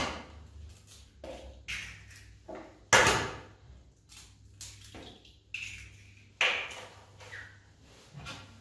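Eggs being cracked against a hard edge over a plastic bowl: two sharp knocks, about three seconds in and again a few seconds later, with lighter taps and clicks of shell in between.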